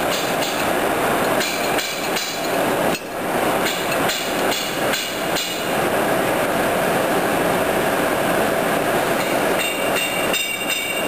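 O-M vertical boring mill running with its table and a large steel ring spinning, a steady mechanical din. Runs of clicks and knocks come from about one and a half to five and a half seconds in, and again near the end.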